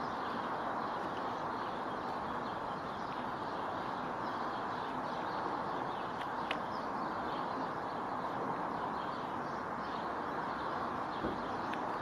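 Steady outdoor background hiss, with a few scattered sharp taps of a great spotted woodpecker pecking at a cobnut's hard shell.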